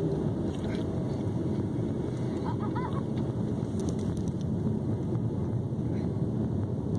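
Steady low rumble of a car driving slowly, engine and tyre noise heard from inside the vehicle. A faint short chirp is heard about halfway through.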